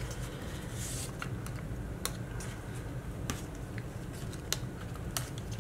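Scattered light clicks and soft rustles of cardstock craft pieces being handled and adhesive dots being pressed on, over a steady low hum.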